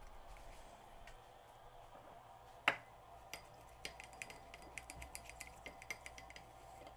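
Light, irregular clinks and ticks of an acid brush and a small cassette-deck part knocking against a glass bowl as the part is scrubbed clean, with one sharper clink a few seconds in.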